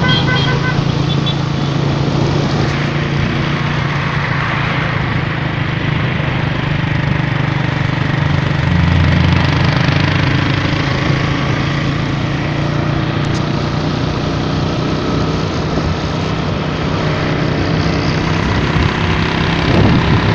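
Motorcycle engine running steadily on the move, its low hum swelling briefly about nine seconds in, under constant wind and road noise.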